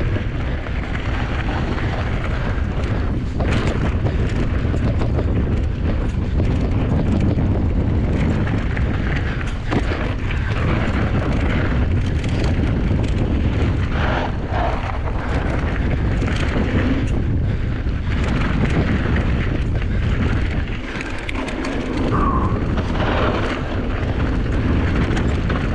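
Wind buffeting the microphone of a rider-mounted camera on a mountain bike riding fast down a dry dirt trail, with tyre rumble and short knocks and rattles from the bike over bumps. The noise eases briefly about three quarters of the way through.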